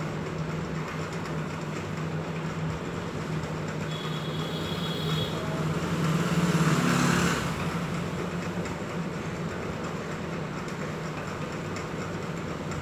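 Steady low mechanical hum under a haze of background noise, swelling louder for about two seconds near the middle.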